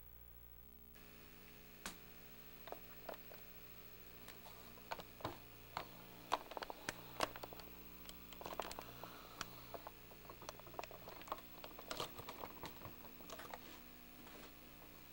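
Irregular light clicks and taps, scattered and uneven, thickest in the middle stretch, over a faint steady hum.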